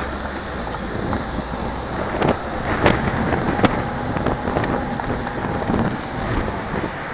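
Steady wind rush and tyre rumble from riding an electric unicycle along a paved path, heard through a camera microphone mounted on the ride, with a thin steady high tone underneath. A few sharp clicks come between about two and four seconds in.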